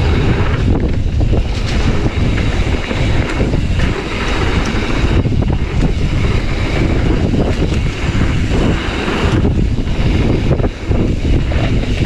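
Wind rushing over the microphone of a mountain bike descending a dirt trail, mixed with tyre noise and the clatter of the bike over bumps, with a few brief lulls.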